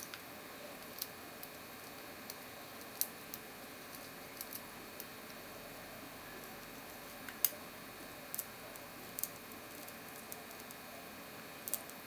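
Lock picks working inside the keyway of a cross-key (cruciform) padlock: scattered small metallic clicks and ticks at irregular intervals over a steady hiss, the sharpest about seven seconds in.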